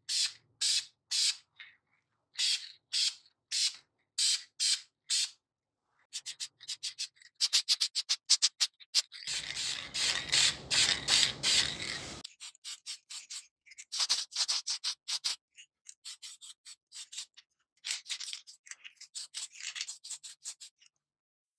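Repeated hand rubbing strokes, about two a second at first and then quicker and closer together. A steady hiss lasts about three seconds in the middle.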